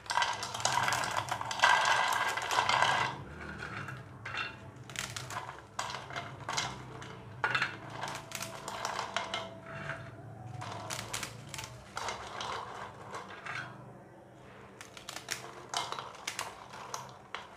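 Crisp fried kara sev (gram-flour murukku strands) being snapped by hand into short pieces. There is a dense crunchy crackling for the first three seconds or so, then scattered sharp snaps as pieces drop onto a plate. The brittle snapping shows the sev is fried crisp.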